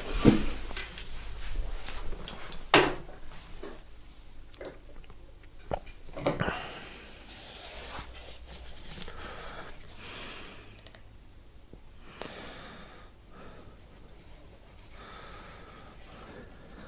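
Handling sounds at a workbench: a fabric-covered model tail part and a plastic glue bottle being picked up and moved, with three sharp knocks in the first seven seconds, then soft intermittent rustling.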